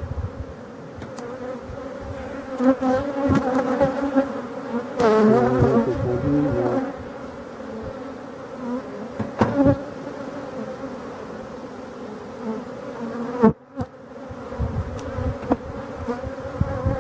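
Honeybees buzzing in a steady hum over an open hive full of bees. The pitch wavers and swells as a bee flies close past the microphone, and there are a few light clicks.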